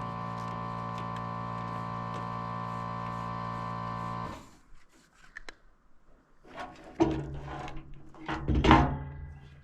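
Air compressor running with a steady hum, cutting off abruptly about four seconds in. After that come scattered knocks and clunks, the loudest about a second before the end.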